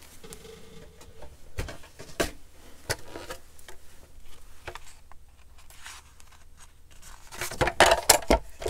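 A plastic paper trimmer being handled and set down on a cutting mat: scattered light knocks and clatter, then a cluster of louder knocks near the end as it is put in place.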